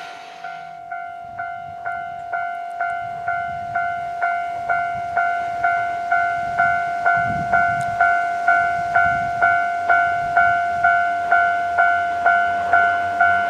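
Japanese railway level-crossing warning bell ringing, an evenly repeated clang about two and a half strikes a second, growing louder over the first few seconds. It is the crossing's warning that a train is approaching.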